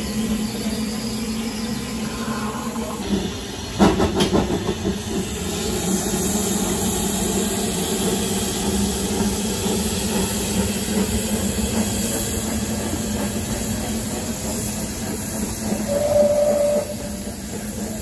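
Narrow-gauge steam locomotives, the Double Fairlie Merddin Emrys and Lyd, hissing steam and moving slowly over the yard track. There is a burst of clanking about four seconds in and a short whistle-like note near the end.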